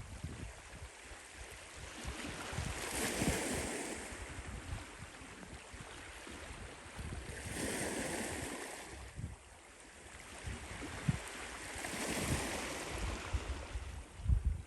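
Sea waves breaking and washing in, swelling three times a few seconds apart, with wind buffeting the microphone in low thumps.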